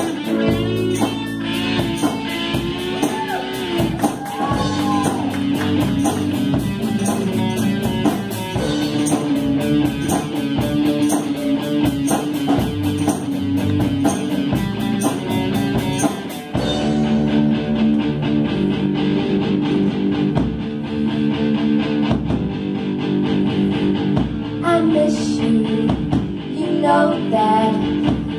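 Live rock band of electric guitars, keyboard and drum kit playing a song with a group of young singers. A steady cymbal beat runs through the first half and stops about halfway, leaving held guitar and keyboard chords, with singing returning near the end.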